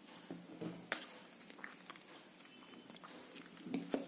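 Faint scattered clicks and light taps from the robot car's chassis plates and motors being handled, with one sharper click about a second in.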